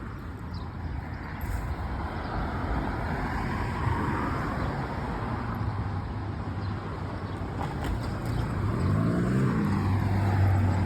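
A motor vehicle running, its steady noise growing gradually louder, with its engine pitch rising and falling near the end.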